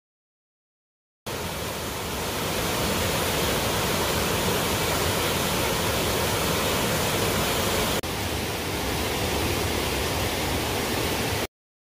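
Steady rushing of a swollen, muddy river running high over rapids. It starts abruptly about a second in, breaks sharply about eight seconds in, and cuts off suddenly near the end.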